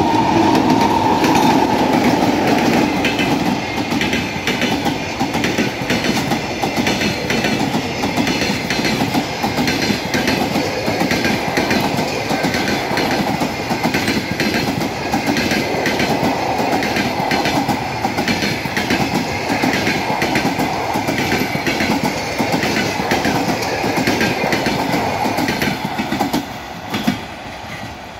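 Passenger train hauled by two EP2K electric locomotives passing close by: the locomotives go by first, loudest at the start, then a long string of coaches clatters over the rail joints in a steady, rapid clickety-clack. The sound drops off sharply near the end as the last coach passes.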